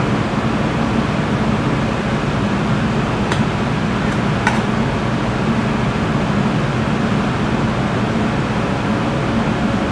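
Ventilation fan running: a steady rushing noise with a low hum. A couple of faint clicks come about three and four and a half seconds in.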